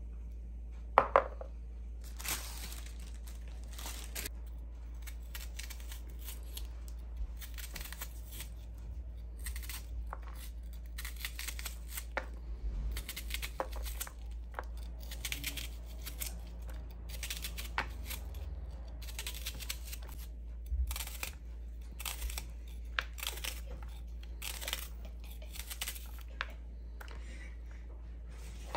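Kitchen knife slicing a peeled raw onion held in the hand, with short crisp cuts coming again and again at an uneven pace and the slices dropping into a plastic bowl. Two sharp knocks come about a second in, and a low steady hum runs underneath.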